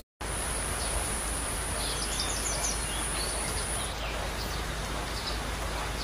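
Tropical forest ambience: a steady high-pitched insect drone, weakening about four seconds in, with a few short bird chirps around two seconds in, over a steady background hiss.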